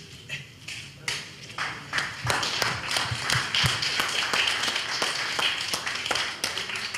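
A small crowd clapping: a few scattered claps about a second in, building into steady applause from about two seconds in.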